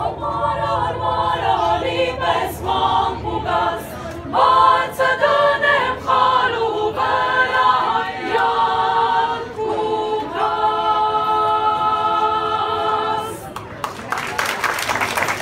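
Youth choir singing a cappella in several parts, ending on a long held chord. The audience starts applauding about a second after the singing stops, near the end.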